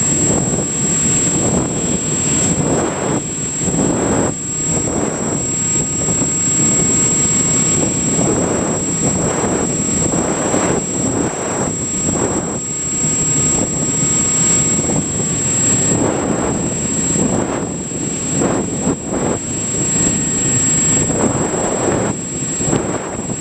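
Multiplex EasyStar RC foam plane in flight, heard from its onboard camera: wind rushing and buffeting over the microphone in uneven swells, with the electric pusher motor and propeller running and a thin steady high tone over it.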